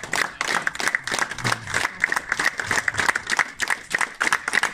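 A small group applauding steadily, a dense run of quick hand claps.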